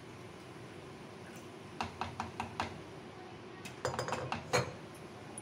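Wooden spoon knocking against the rim of an aluminium pressure cooker while stirring a thick curry: a run of five light knocks about two seconds in, then a quicker cluster near four seconds, the last the loudest.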